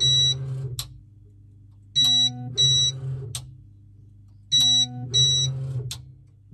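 QIDI X-CF Pro 3D printer probing its build plate during auto bed leveling: pairs of short, high-pitched tones repeat about every two and a half seconds, each pair followed by a faint click, over a steady low hum.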